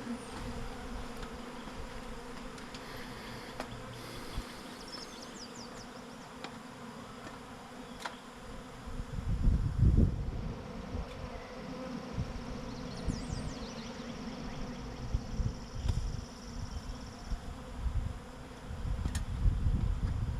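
Many honey bees buzzing in a steady hum around a disturbed swarm cluster, bees that are angry at this stage. Low rumbling bursts break in about halfway through and again near the end.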